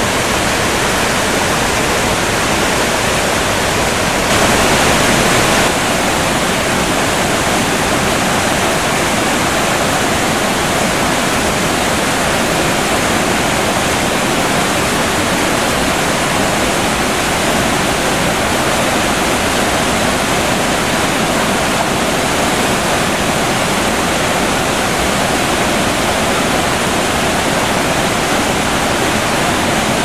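River white water rushing over rapids and small falls between rocks: a loud, steady noise, briefly louder for a second or so about four seconds in.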